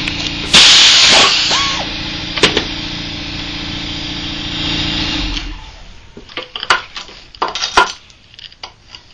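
A steady mechanical hum from a running workshop machine, with a loud burst of a power tool about half a second in and a sharp knock a second later. The hum stops about five and a half seconds in, leaving a series of sharp metal clinks and knocks as engine parts are handled.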